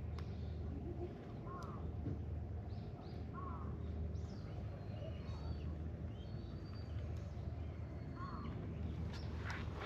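Outdoor ambience: a steady low rumble, with a short animal call every few seconds and a few faint high bird chirps in between.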